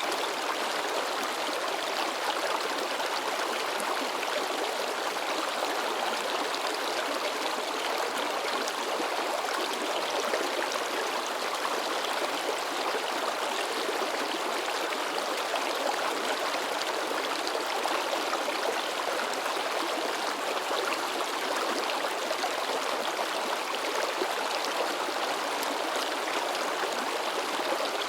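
River water babbling and splashing over rocks, a steady rushing with no pauses.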